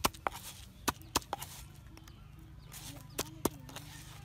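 A pestle pounding chili paste in a stone mortar: several sharp knocks, irregularly spaced, with a pause of about two seconds in the middle.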